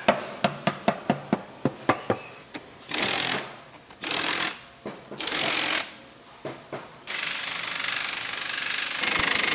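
Pneumatic impact wrench tightening the nuts on the bolts of a wooden cable drum: three short bursts, then one long rattling run of nearly three seconds. Before it comes a quick series of about a dozen sharp knocks on wood, several a second.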